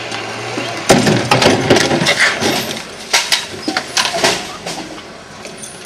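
A rapid, irregular run of sharp knocks and clatters, starting about a second in and thinning out after about four seconds.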